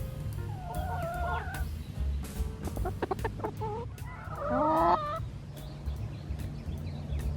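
Chickens clucking and calling: a call about a second in and a louder, longer one around four to five seconds in.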